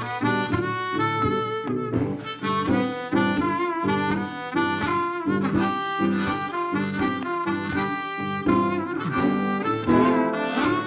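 Background music: a harmonica playing a bluesy tune over a rhythmic accompaniment.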